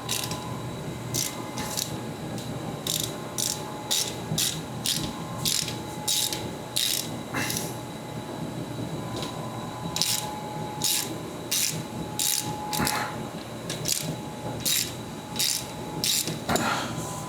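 Hand ratchet clicking in repeated strokes, about two to three clicks a second with short pauses, as it turns the transfer case drain plug. The plug spins in place without backing out: its threads are stripped.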